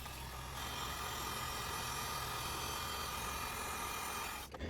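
Electric heat gun running: a steady airflow hiss with a fan-motor whine, shrinking heat-shrink tubing over wiring. It cuts off near the end.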